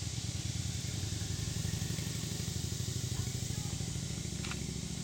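A motor vehicle's engine running steadily, a low rumble with no change in level.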